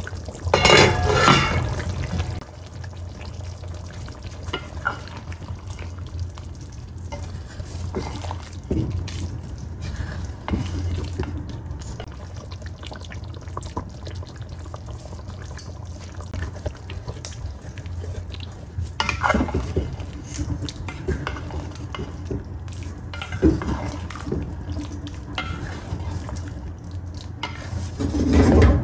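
A pot of chicken gravy simmering, with a spatula stirring and scraping the aluminium pot several times, loudest about a second in and again near the end. A steady low hum runs underneath.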